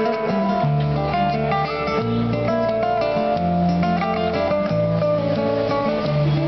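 Background music led by a strummed acoustic guitar, with bass notes changing about once a second.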